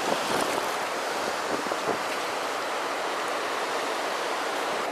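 Steady wash of choppy river water with wind on the microphone, with a few faint splashes from a hooked skygazer at the surface in the first half second.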